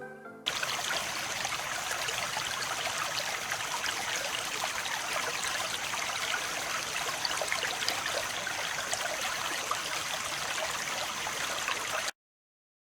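Steady rush of running water, even and unbroken, with a faint thin high tone over it. It cuts off abruptly near the end.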